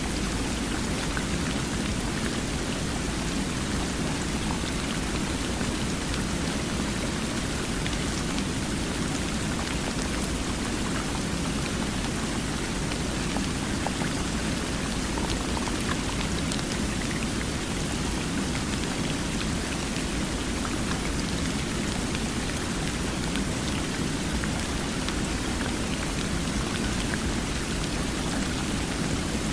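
Flowing water making a steady, unchanging rushing hiss.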